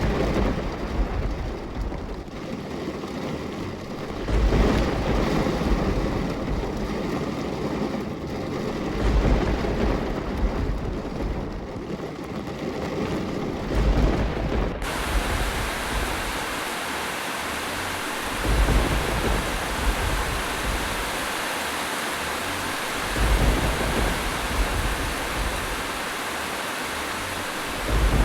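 Rain-sound recording: a steady wash of rain with low rumbles that recur about every four to five seconds. About halfway through, the sound changes abruptly to a brighter, fuller hiss of rain.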